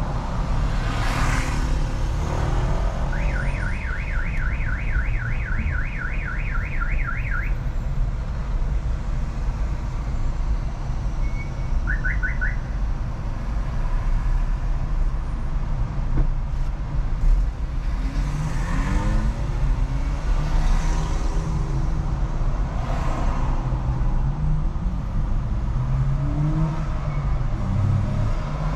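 Car alarm sounding in the street: a fast warbling tone of about four rising sweeps a second that lasts some four seconds, then a short repeat of three sweeps. Underneath is the steady road and engine noise of a car driving through city traffic, with other vehicles passing now and then.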